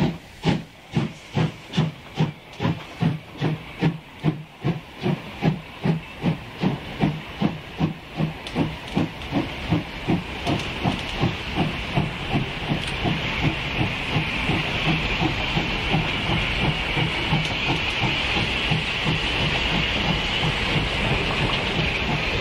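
German 2-10-0 freight steam locomotive pulling away under load: sharp exhaust chuffs, about two a second at first, quickening until they blur about halfway through into a continuous rush of exhaust over a steady hiss of steam from the cylinders.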